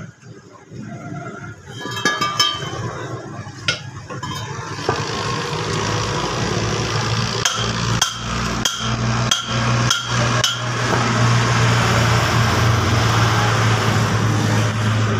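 Hammer knocks on a steel Fiat 480 tractor spindle, then an angle grinder starts and runs against the metal: a steady, loud grinding hiss over a low hum. A run of sharp knocks comes about halfway through.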